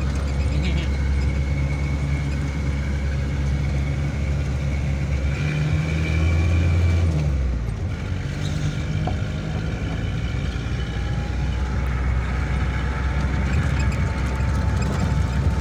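Jeep engine running as it climbs a rough dirt mountain track, heard from inside the cab with road noise. About six seconds in the engine revs up, then drops back about a second and a half later.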